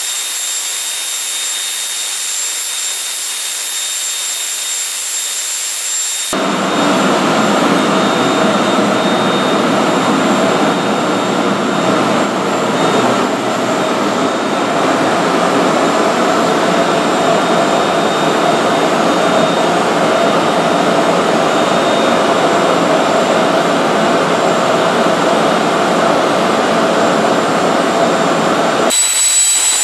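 Orenda OTF-3 industrial gas turbine, burning propane, running steadily at about 5,980 rpm. It starts as a high hiss with a thin steady whine, then about six seconds in switches abruptly to a louder, deeper rushing noise that holds steady, before cutting back to the hiss at the very end.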